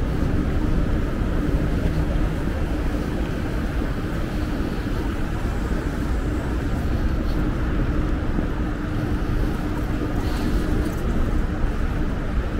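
City street traffic noise: a steady low rumble of vehicles, with a steady hum over it that stops near the end.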